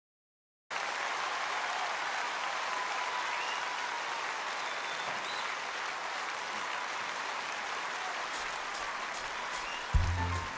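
An audience applauding steadily, starting after a moment of silence. Near the end, the low notes of the song's musical accompaniment come in.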